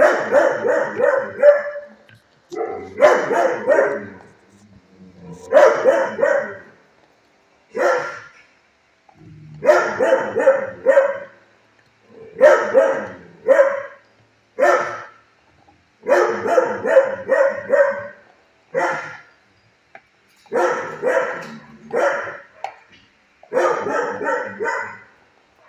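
Dog barking in repeated bouts: a quick run of barks lasting about a second, coming every two to three seconds.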